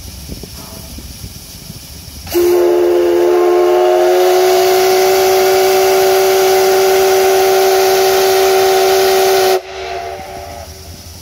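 Steam whistle of the D51 200 steam locomotive blowing one long blast of about seven seconds, starting about two seconds in and cutting off sharply, a steady chord of several tones over a rush of steam hiss.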